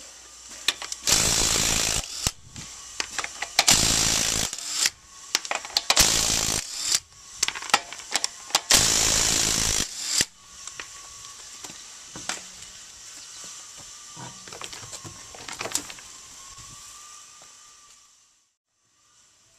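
Ryobi 18V cordless 1/2-inch impact wrench hammering the lug nuts off a truck wheel in four bursts of about a second each. Lighter clicks and knocks follow.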